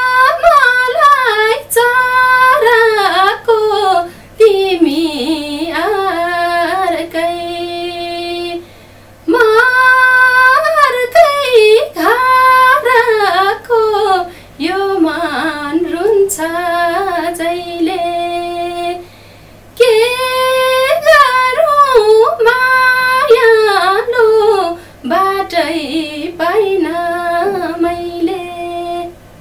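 A woman singing a Nepali song unaccompanied, in three phrases, each ending on a long held note.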